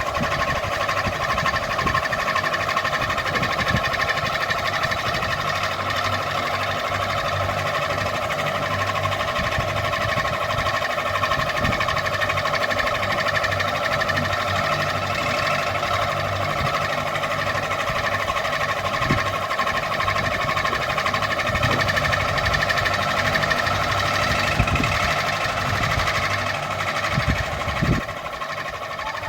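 Ceiling fan running, a steady hum with irregular low thumps.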